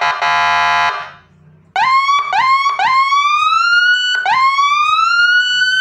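Electronic siren module through a horn speaker. It first sounds a harsh, buzzy horn tone that stops about a second in. After a short gap it gives four rising whoop sweeps: two quick yelps, then two longer climbs.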